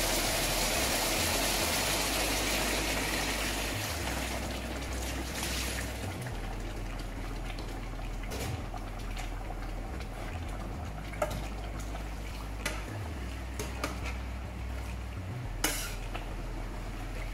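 Beef stock poured into a hot stainless-steel braising pan of seared beef and vegetables, a broad hiss that fades after about five seconds. After that, a few sharp clinks and scrapes of a metal spatula against the steel pan.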